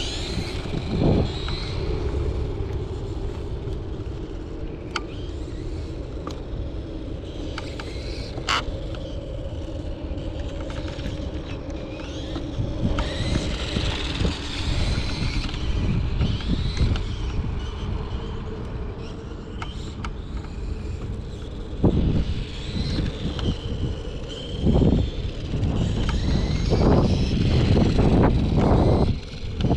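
Kyosho RC motorcycle's electric motor whining, its pitch rising and falling as the bike speeds up and slows. Wind rumbles on the microphone throughout and gusts hardest near the end.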